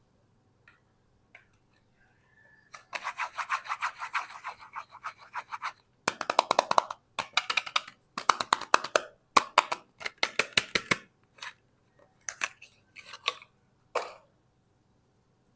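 Handling a packaged bar of soap: rapid scratching and crinkling in several bursts of one to three seconds each, thinning to a few separate scrapes near the end.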